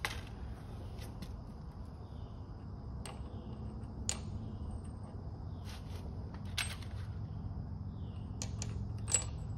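Light metal clicks and clinks, about half a dozen at irregular intervals, as the coupler and lock washer are worked off by hand at the pinion shaft end of a Ford Model A differential. A steady low hum runs beneath them.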